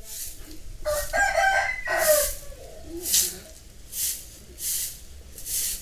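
A broom sweeping across a dirt yard in repeated short swishes, a little faster than one a second. A rooster crows once about a second in.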